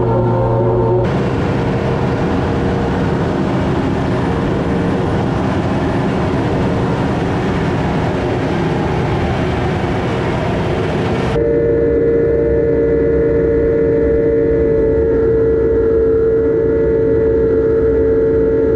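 Farm machinery cutting hay, its engine running steadily with a steady whine over it. The sound changes abruptly twice, about a second in and again about eleven seconds in.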